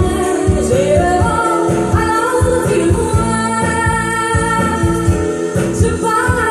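Recorded soul-style song with a singing voice over a steady bass beat, played back through a vintage Onkyo Integra M-504 power amplifier and P-304 preamplifier and heard through its loudspeakers.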